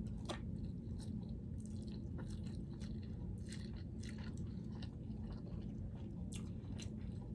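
A person chewing food close to the microphone, with scattered wet clicks and smacks of the mouth, over a steady low hum.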